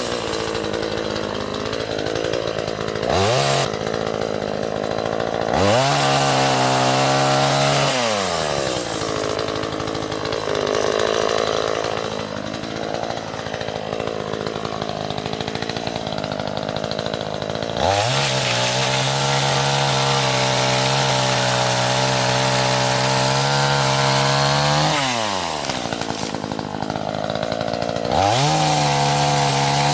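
Gas two-stroke chainsaw repeatedly throttled up to full revs and let back down, several times. Between the high-revving stretches its pitch drops and roughens as it works under load through branch wood.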